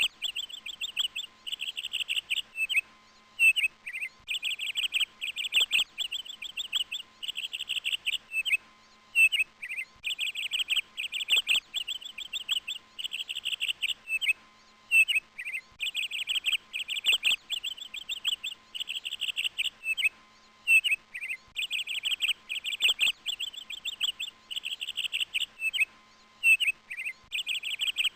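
Bird chirps and rapid high trills, with short downward-sliding calls between them, repeating the same phrase pattern about every six seconds.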